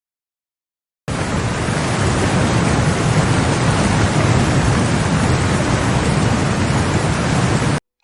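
Flood sound effect of rushing water: a loud, steady, deep rush that starts about a second in and cuts off suddenly near the end.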